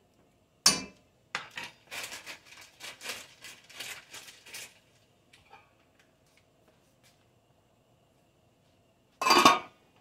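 A spoon knocks and scrapes in an enamelled steel pot in a quick run of short strokes, then about nine seconds in the enamel lid clangs down onto the pot with a short ring.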